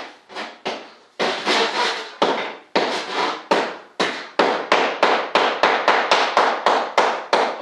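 Hand sawing through a composite gear-door panel: rapid back-and-forth saw strokes, about three a second at first and quickening to about four a second.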